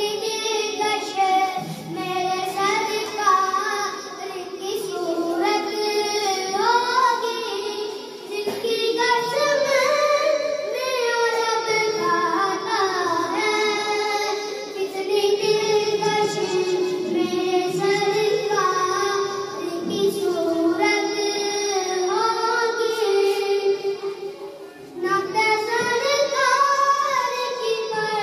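A boy singing a naat solo into a microphone, in long ornamented melodic phrases with brief pauses between lines.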